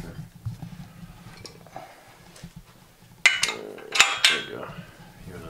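Metal hand tools, a ratchet wrench among them, clanking against metal: a few light clicks, then three sharp ringing clanks close together a little past halfway.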